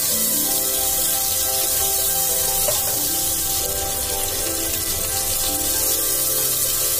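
Sliced onions sizzling in hot oil in an aluminium pressure cooker, a steady hiss, stirred with a silicone spatula partway through, under soft background music.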